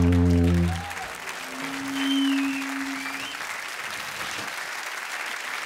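A long, low sousaphone note cuts off under a second in. Audience applause follows, with a wavering whistle about two seconds in.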